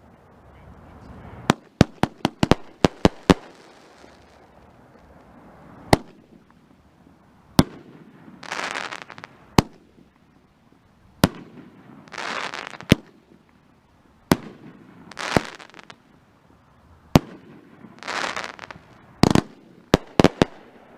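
A 24-shot consumer firework cake firing. Sharp bangs of aerial shells breaking come singly and in quick clusters, and four times a rushing hiss lasts about a second.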